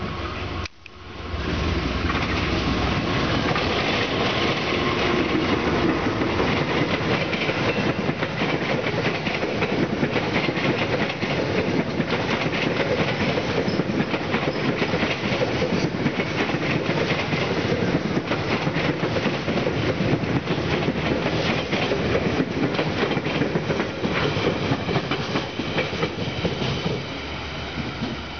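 Passenger train rolling past close by, its coaches' wheels clattering rapidly over the rail joints. The sound cuts out briefly about a second in and eases off near the end as the last coach passes.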